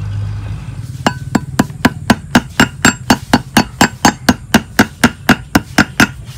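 Pestle pounding in a mortar, sharp knocks at a steady rhythm of about four strokes a second that start about a second in, working ingredients down fine.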